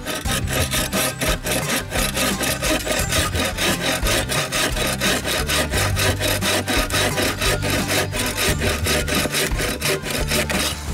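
EKA Combi Saw 21 folding bow saw cross-cutting a branch, in rapid, even back-and-forth strokes of the blade rasping through the wood.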